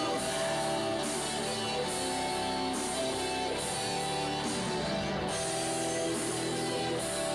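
Rock music from a live band: electric guitar chords held over drums, an instrumental stretch with no vocals.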